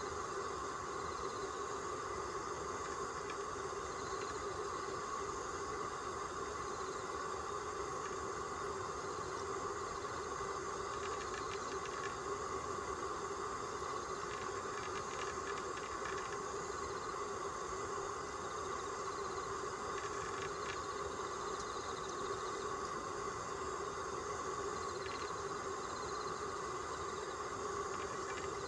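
Steady, unchanging background hum, with a few faint ticks in the middle.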